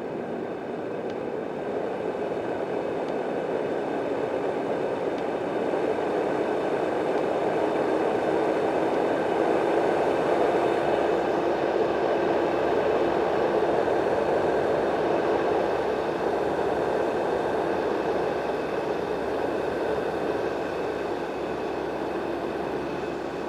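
Yogasleep Dohm Nova white noise machine running, its real fan giving a steady airy rush with a faint motor hum. The loudness swells gradually over the first half, then eases off near the end.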